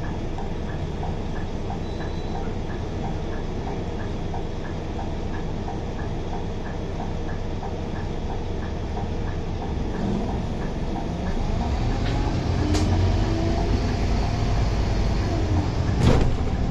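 Scania K280UB bus's diesel engine idling in a queue, heard from inside the cabin, with a regular light ticking for the first half. The bus then pulls away, the engine note rising as it accelerates, with a couple of sharp knocks near the end.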